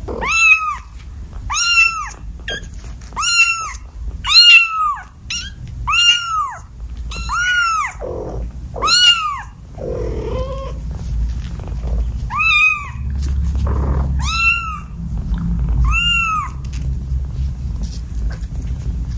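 A kitten meowing repeatedly in high, rising-and-falling cries, about one a second for the first ten seconds, then three more after a short pause, over a low steady rumble.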